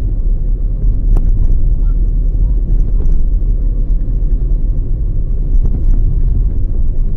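Steady low rumble of a car on the move, road and wind noise heard from inside the vehicle, with a faint click about a second in.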